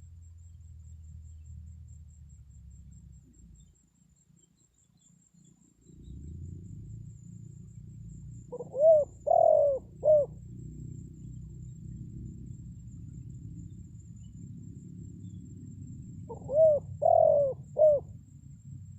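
Spotted dove (tekukur) lure call: two three-note cooing phrases, each a short note, a longer note and a short note, several seconds apart, over a low steady rumble.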